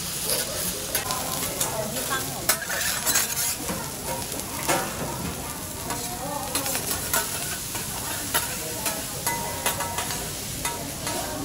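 Food sizzling on a teppanyaki griddle, a steady frying hiss, with irregular sharp clicks and scrapes of metal spatulas working the food on the hot plate.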